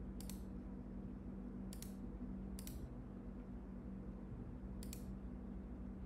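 A computer mouse clicking in four short bursts, over a steady low hum.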